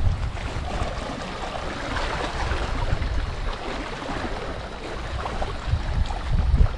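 Wind buffeting the microphone in gusts, over a steady wash of lake water, with the gusts strongest near the end.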